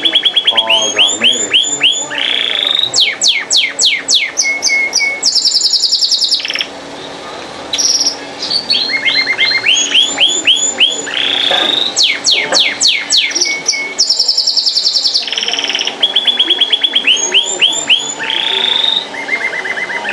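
Canary singing a long song of fast trills and rolls, with runs of rapid repeated notes and quick descending sweeps. A short pause comes about seven seconds in before the song resumes.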